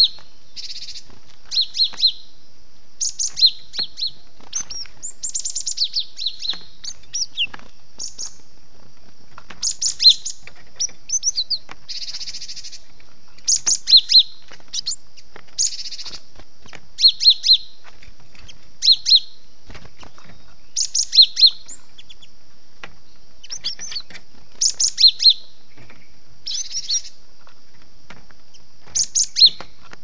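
Cinereous tit calling: short, sharp, high notes in quick clusters of two to four, repeated every second or two over a steady high hiss. These are the calls of a tit caught in a trap, used as a lure call.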